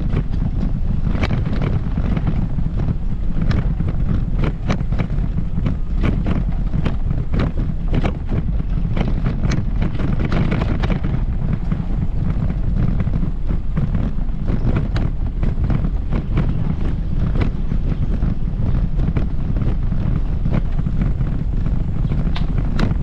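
Wind buffeting the microphone with a steady low rumble, with many irregular short clicks and ticks over it.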